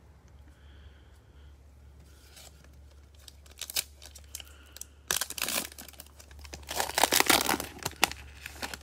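Foil wrapper of a 2020 Panini Prizm baseball card pack being torn open by hand, crinkling. The tearing comes in two spells, about five seconds in and again, louder, from about six and a half to eight seconds.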